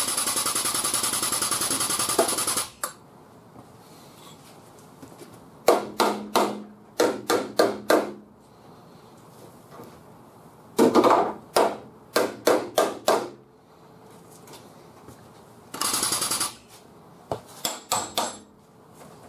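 Groups of quick hammer blows on a car's deck lid while it is held under pull by a chain from a frame machine, in three clusters of several strikes each. A rapid-pulsing pneumatic tool runs briefly at the start and again for a moment about two-thirds of the way through.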